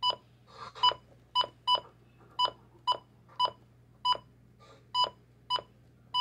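Midland WR-100 weather radio beeping with each key press as its menu is scrolled: about eleven short, identical electronic beeps at an uneven pace.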